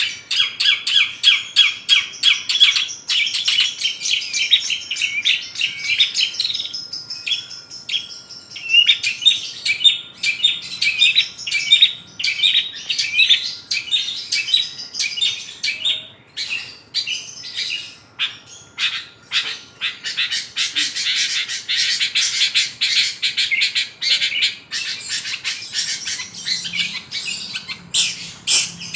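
Long-tailed shrike singing a rapid, unbroken run of chirps and squawky notes, full of mimicked phrases (isian) from other birds.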